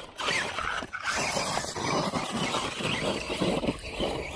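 RC rock bouncer truck driving over a rock obstacle, its electric motor revving up and down in quick bursts, with two short breaks in the sound near the start.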